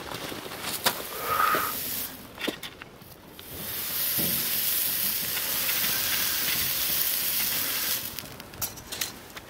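Hot steel horseshoe pressed against a horse's hoof during hot-fitting: the hoof horn burns with a steady hiss and sizzle. The sizzle builds about three and a half seconds in and stops sharply about eight seconds in, after a few light clicks and knocks.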